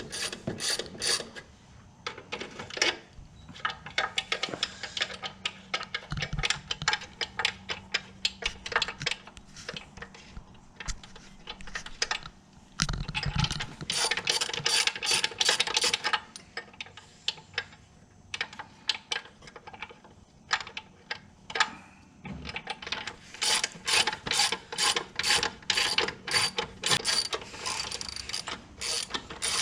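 Runs of rapid mechanical clicking, like a ratchet, coming in several bursts with short pauses between them.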